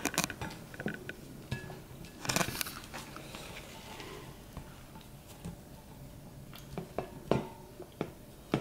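Plastic bottle of a home-made Archimedes screw knocking and scraping against a glass bowl of water as it is turned by hand, with scattered light clicks and a few louder knocks about seven seconds in.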